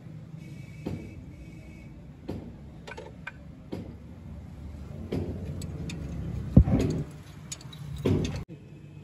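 Scattered metal clicks and knocks from hand work on a tractor's transmission housing as bolts and nuts are fitted, with a loud knock about six and a half seconds in and another shortly after.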